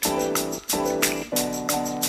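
Background music with a steady beat and repeated chords.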